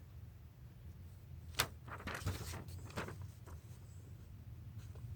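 A single sharp tap about one and a half seconds in, followed by a few faint scratchy sounds, over a low steady hum.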